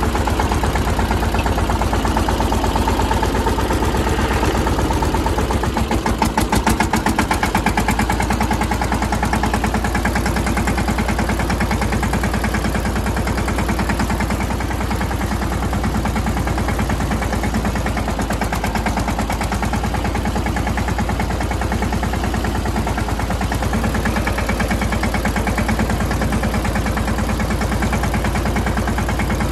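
Mahindra Yuvraj 215 tractor's single-cylinder diesel engine running steadily with a rapid, even firing beat, close up from the driver's seat. It grows briefly louder about six seconds in, then settles back.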